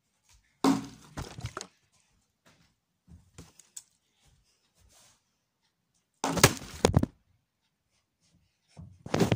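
Plastic bottle thudding and clattering on a wooden tabletop: a loud hit about a second in, a few small knocks, then another loud clatter around six seconds in. Rustling and knocking near the end.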